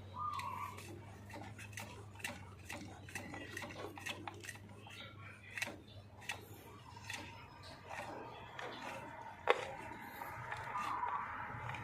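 Scattered light clicks and taps of parts and tools being handled while a new pressure tank is fitted to a water pump, with one sharper knock about nine and a half seconds in. Short warbling bird calls come at the start and again near the end.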